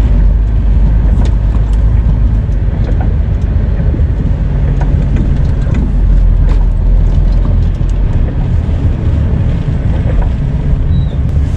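Lorry's diesel engine running with a steady low rumble, with scattered light clicks over it.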